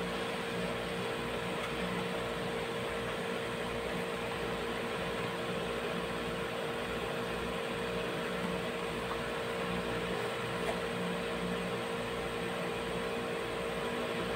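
Steady machine hum and hiss with a constant mid-pitched tone, and one faint click about eleven seconds in.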